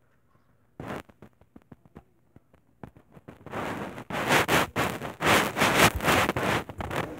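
Handling noise on the recording device: scattered clicks, then from about three and a half seconds in a loud, dense scraping and crackling as the microphone is rubbed and moved.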